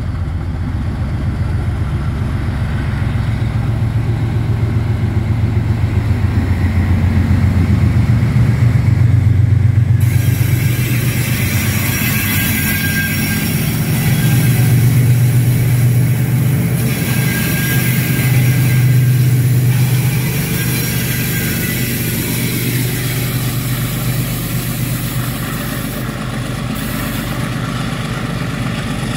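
Transnet class 43GE and 44GE diesel-electric locomotives pulling a loaded freight train away, their engines running under power with a loud low drone. From about ten seconds in, as the locomotives pass close by, a loud hiss joins the engine sound.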